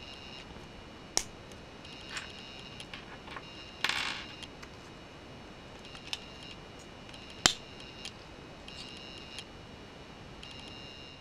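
Plastic Lego bricks being handled and pressed together by hand: two sharp snapping clicks about a second in and again past the middle, and a short rattle of small pieces around four seconds in, over a steady hiss and a faint high tone that comes and goes.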